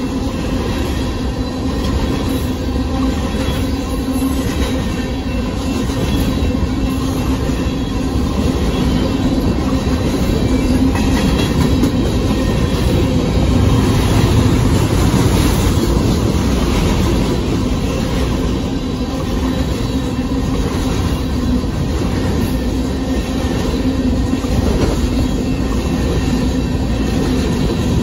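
Covered hopper cars of a Union Pacific grain train rolling past at close range: a loud, steady noise of wheels on rail.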